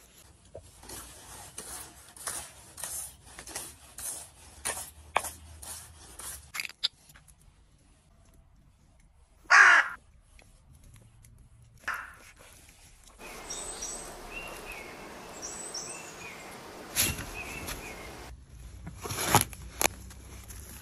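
Spice sprinkled onto raw steak in a run of short soft strokes, then a single loud harsh call about ten seconds in and a shorter one soon after. Near the end a steel shovel cuts into wet soil with a couple of sharp scrapes.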